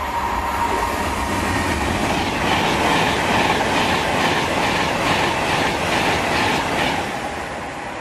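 Class 390 Pendolino electric train passing through the station at speed. A rush of wheel and air noise swells as it comes alongside, with a rhythmic clatter of its wheels from about two seconds in to near the end, over a steady hum, then fades as it draws away.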